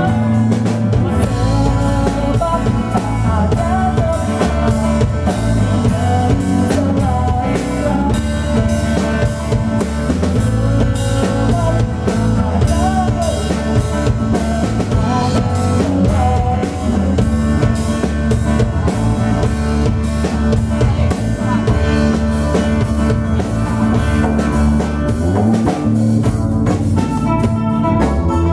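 Live band music: drum kit, bass, guitars and a hand-played frame drum, with a woman singing.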